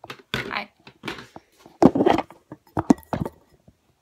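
Handling noise from a phone being picked up and repositioned: irregular bumps, knocks and rubbing right at the microphone, the heaviest thumps about two seconds in and a few sharp clicks soon after.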